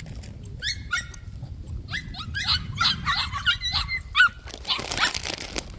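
White puppies yipping and whining: many short, high-pitched cries that rise and fall in pitch, in quick clusters, followed by a short burst of noise near the end.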